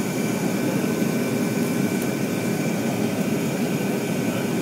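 Boeing 737 jet engines running steadily, heard inside the cabin over the wing: a low rumble with a steady high whine.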